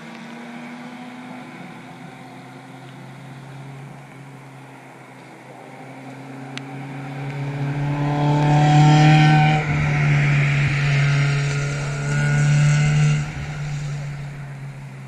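A single race car approaching and passing on a wet track: its engine and tyre noise are faint at first, swell from about six seconds in, are loudest as it comes by close, then drop away near the end.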